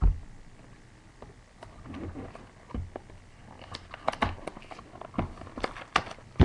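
Hands handling and opening a cardboard trading-card box: a low thump at the start, then scattered taps, clicks and scrapes of cardboard, busier in the second half.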